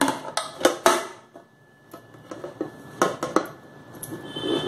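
A metal cake tin and a plate clinking and knocking together as a cake is turned out of the tin onto the plate: a quick run of sharp clinks, a short pause, then more knocks and a louder one near the end.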